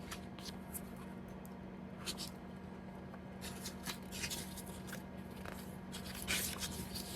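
Paper rustling and soft handling noises as the pages of a photo booklet are turned, several short rustles spread through, the strongest about six seconds in, over a steady low hum.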